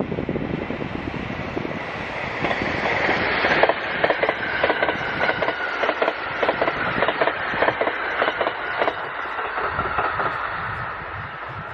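An electric train passes at speed, its wheels clattering in quick rhythmic clicks over the rail joints. The clatter is loudest a few seconds in and fades away near the end.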